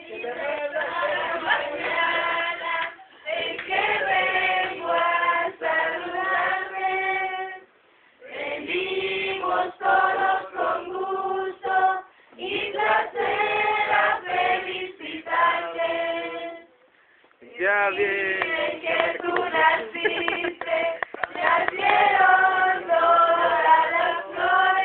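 A group of people singing together, in sung phrases broken by short pauses about every four to five seconds.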